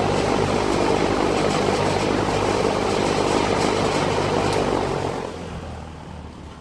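1960s Hunter FL20 metal box fan running on high, a steady rush of air over a low motor hum, with the blades rattling. About five seconds in it is switched off, and the sound falls away as the blades begin to spin down.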